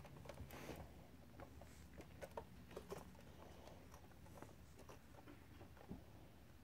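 Near silence with faint, irregular taps and scuffles of a kitten batting and grabbing at a stick toy.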